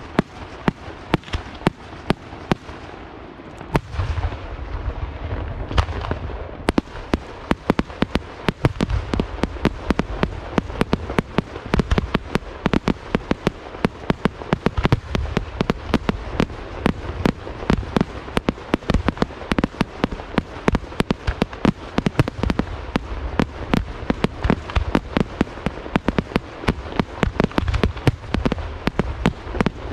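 Aerial fireworks shells bursting in a continuous barrage: a rapid stream of sharp bangs, several a second, over deep booms. It grows denser after about seven seconds.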